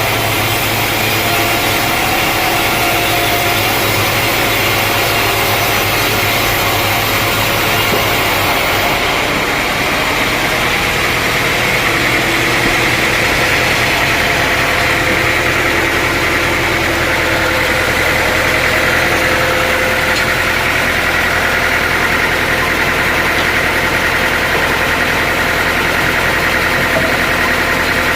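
Sawmill machinery running steadily, an engine-like drone with a constant hum; its sound changes about nine seconds in, losing some of its high hiss.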